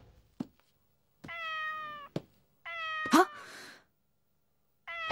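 A kitten meowing three times, each call high and slightly falling; the second breaks into a sharper, louder cry partway through. A faint click comes just before the first meow.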